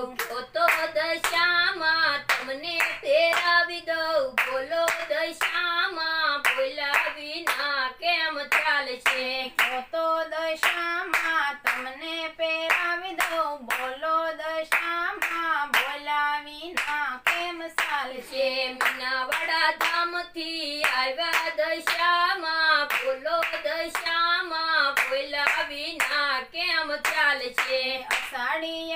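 A Gujarati devotional song to Dashama sung by high voices over a steady beat of hand claps, about three claps a second.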